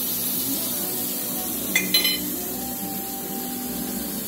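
Pork chops sizzling on an electric countertop grill, a steady hiss, with a metal fork clinking against the grill grate about two seconds in.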